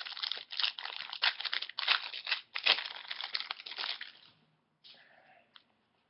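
Plastic wrapper of a hockey card pack being torn open and crinkled: dense crackling for about four seconds, then a few faint rustles.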